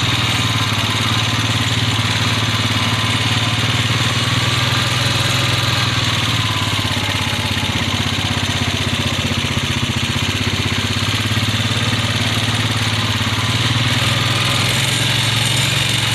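Small engine running steadily with a low, even drone, with no change in speed.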